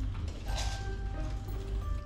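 Background music with steady notes, over a few short clicks and rattles of black pepper being shaken from a jar into a pot.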